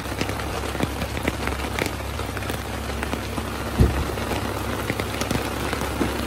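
Heavy rain falling and pattering on surfaces as a dense run of small drop ticks, over a steady low hum. A single louder thump a little under four seconds in.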